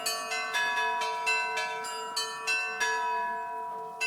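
Russian church bells being rung: smaller bells struck in a quick pattern, about three strikes a second, over the steady hum of a larger bell. The strikes stop about three seconds in and the ringing dies away.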